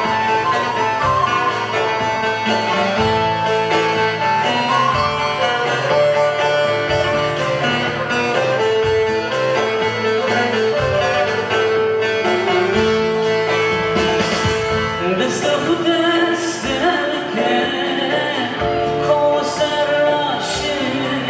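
Live folk music on bağlama (long-necked saz) with keyboard and bass, and a man singing. Sharp percussion strikes come in during the second half.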